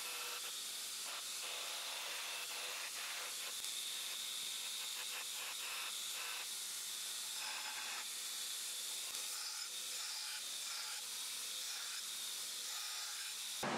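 Belt grinder running with a steel knife blade held against the abrasive belt: a steady hiss of grinding.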